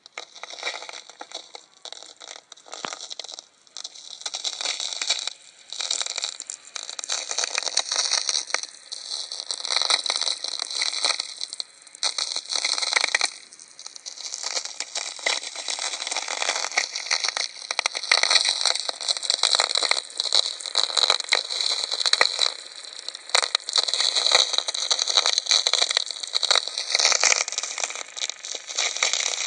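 Natural VLF radio signals heard through a homemade receiver: a dense, irregular crackle of sferics, the radio clicks from distant lightning, coming in surges. Faint gliding tones run through the crackle now and then.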